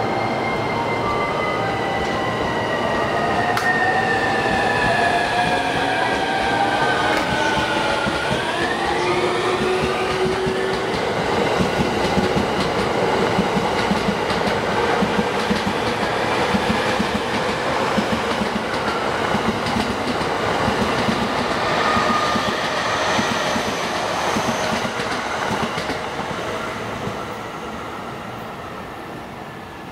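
E231 series 1000 electric train accelerating out of the station, its inverter motor drive whining: high tones slide steadily down in pitch for about eight seconds, then jump and climb for a couple of seconds. The whine then gives way to wheels clattering over the rail joints as the cars go by, and the sound fades near the end as the train leaves.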